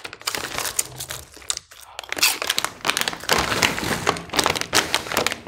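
Foil-lined plastic snack bags crinkling as they are handled and one is picked up, a dense run of irregular crackles.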